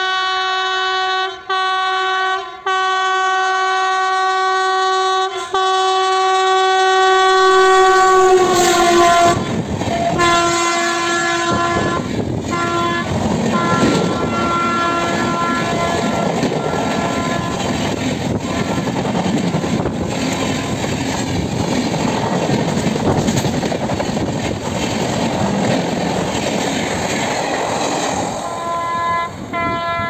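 WAP-7 electric locomotive's air horn sounding one long blast with a few brief breaks, its pitch dropping as the locomotive passes about eight seconds in. The passenger coaches then rush past with wheels clattering over the rail joints and a few shorter, fainter horn blasts. Near the end another horn begins.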